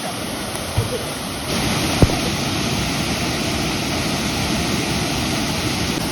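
Steady rushing of a waterfall, abruptly louder about a second and a half in, with two short knocks, one just before and one just after the jump.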